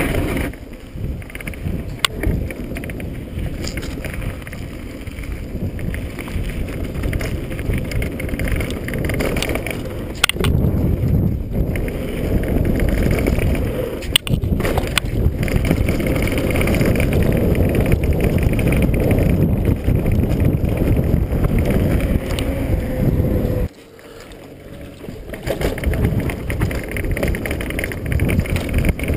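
Downhill mountain bike on a dirt trail, heard from a camera on the bike or rider: steady wind buffeting on the microphone and tyre rumble, with the bike rattling and a few sharp knocks. Near the end the noise drops suddenly for a moment, then builds back up.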